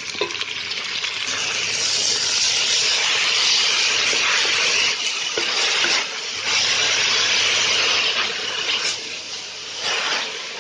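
Freshly washed spinach sizzling and hissing loudly in hot oil with fried onions as it is stirred, the water on the leaves spitting in the oil; the hiss dips briefly a few times.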